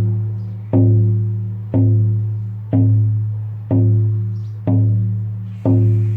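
Lakota healing drum, a hide frame drum, beaten in a steady rhythm of about one stroke a second. Each stroke rings with a deep hum that fades before the next one lands, six strokes in all.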